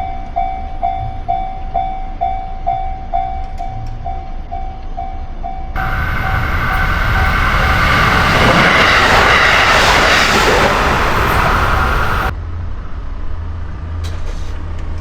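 Japanese level-crossing alarm ringing its steady 'kan-kan' about twice a second, then a train passes over the crossing, loudest about halfway through, drowning out the alarm. The train noise cuts off suddenly about three seconds before the end, leaving only a low rumble.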